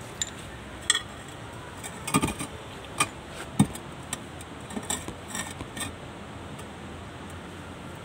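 Scattered light metallic clinks and knocks of tools or steel parts being handled, a dozen or so short sharp hits spread over the first six seconds, over a steady low background noise.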